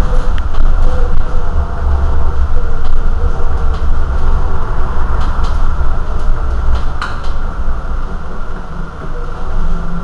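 Irizar i2e battery-electric city bus standing at a stop, with a loud, steady rumble and hum. A few faint clicks and one short sharp click come about seven seconds in.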